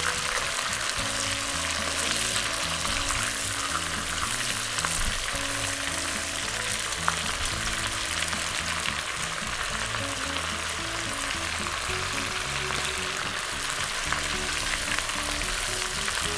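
Chicken pieces frying in hot oil in a pot: a steady sizzle, with metal tongs now and then turning the pieces.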